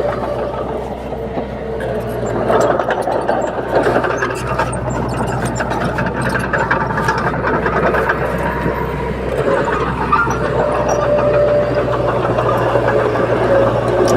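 Komatsu D21P bulldozer working: its diesel engine runs steadily under load, with rapid clanking of the steel tracks throughout.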